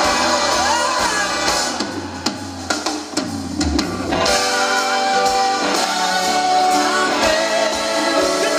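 Live rock band with a male lead singer, a chorus of backing singers, saxophone and trumpet, electric guitar and drums. The sound thins out between about two and four seconds in, then the full band and singers swell back in with held chords.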